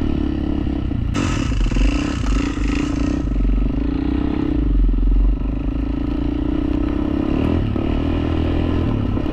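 Quad (ATV) engine running steadily under way, its pitch wavering slightly. A rushing, hissing noise joins in from about one to three seconds in.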